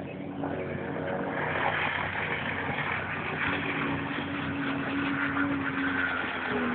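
Jet ski engine running under way, with a hiss of water. It gets louder about half a second in, then holds a fairly steady pitch.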